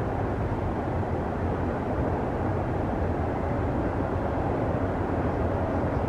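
Passing train: a steady rumble of rail cars rolling by, without the horn.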